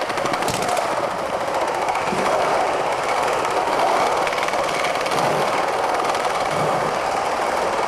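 Skateboard wheels rolling steadily over a smooth tiled floor, a continuous rolling roar with a few soft thuds as the board passes over tile joints or the rider shifts weight.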